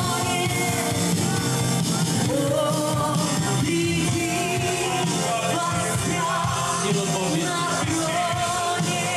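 Worship band music with a woman singing the lead into a handheld microphone, continuous and at a steady level.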